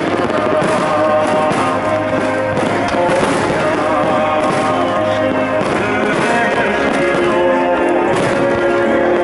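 Loud music with large aerial firework shells going off over it, repeated bangs and crackle among the notes.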